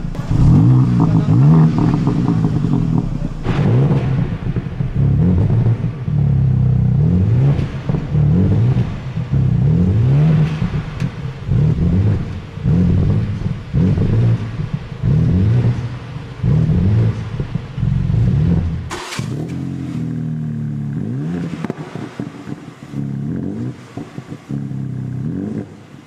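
2021 BMW M4's twin-turbo straight-six being revved in repeated blips, about one a second, each rising and falling back. About three-quarters of the way in the sound changes to a steadier engine note with slower rises in pitch.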